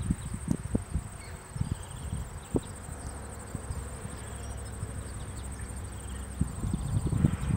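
An insect trilling steadily in a high, finely pulsing buzz, over irregular low thumps and rumbles that grow louder near the end.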